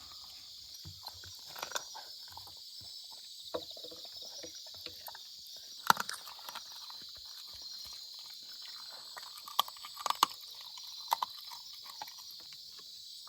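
A German shorthaired pointer eating from the hand, chewing and smacking, with scattered small clicks and knocks, the sharpest about six seconds in and around ten seconds. A steady high chirring, like insects, runs underneath.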